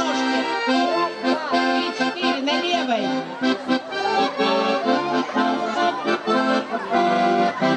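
Lively accordion folk dance tune with a steady bouncing beat, sustained chords under a running melody.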